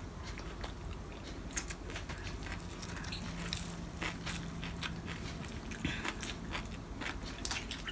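A person eating close to the microphone: scattered soft crunches and mouth clicks of chewing and biting crispy fried dried fish.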